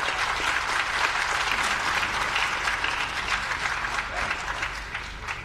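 A crowd applauding, a dense patter of many hands clapping that thins out near the end.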